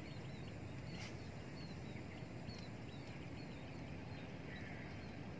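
Faint outdoor ambience: a small bird repeating short high chirps over a steady low rumble, with one sharp click about a second in.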